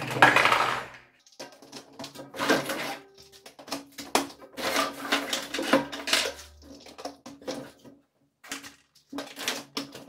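Hard plastic caster wheel base being handled and fitted onto a stainless steel vacuum drum: irregular clattering, knocks and clicks of plastic against the metal tank, loudest in the first second, with short pauses.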